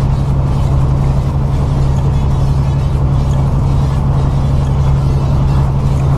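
Semi truck's engine and road noise heard from inside the cab while cruising on the highway: a steady low drone that holds even throughout.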